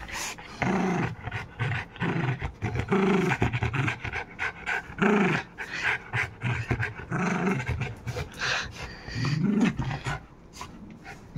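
Indian Spitz dog panting and repeatedly making short vocal sounds that rise and fall in pitch, while playing in a cloth.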